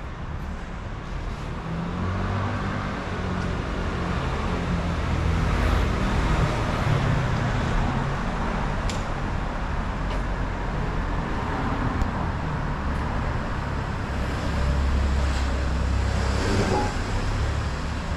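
City street traffic: cars passing along the road, a steady rumble that swells and fades, louder a few seconds in and again near the end.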